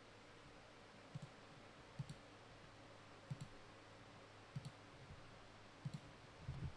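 Faint clicks at a slow, fairly even pace, about one every second and a bit, most of them a quick double tick, over a low steady hum.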